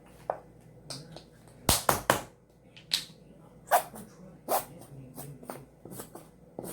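Clicks and knocks of containers and utensils being handled while making slime, with a cluster of three loud knocks about two seconds in and single sharp clicks after it.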